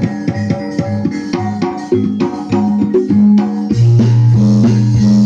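Music with a steady drum and percussion beat and a heavy bass line, played loud through a 1990s-era outdoor sound system with 15-inch woofers; the bass swells louder a little after halfway.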